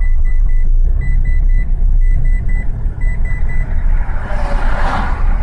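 Steady low road and engine rumble inside a car cabin, with a rapid string of short, high electronic beeps that stops about three and a half seconds in. Near the end a louder hiss builds up over the rumble.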